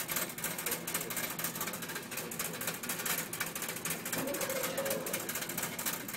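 Mechanical register of an old fuel pump clicking rapidly and evenly as its number wheels roll over during fuelling, over a low steady hum.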